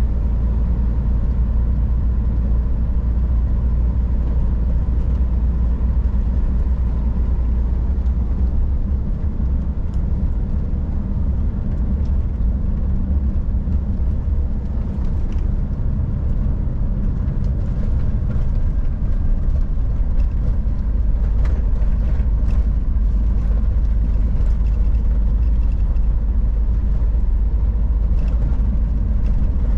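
Scania R440 truck's inline-six diesel engine running under way with a deep, steady drone, mixed with tyre and road rumble on a snowy road. A few faint ticks and rattles come through in the second half.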